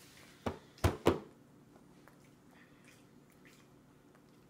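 Three quick, sharp knocks in close succession, about half a second to a second in, at a baby's plastic high-chair tray, with faint room tone around them.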